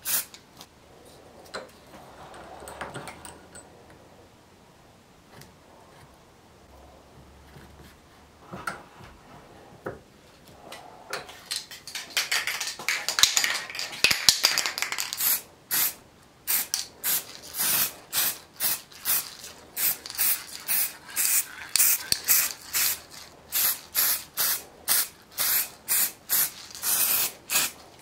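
Aerosol spray-paint can spraying black paint onto a steel bayonet scabbard: quiet at first, then a denser stretch of spraying near the middle, then short repeated bursts, about one and a half a second, until the end.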